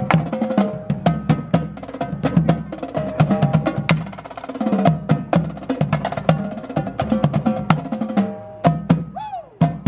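Upbeat percussive music with fast wood-block-like clicks, drum hits and a melody. A short swooping sound comes near the end.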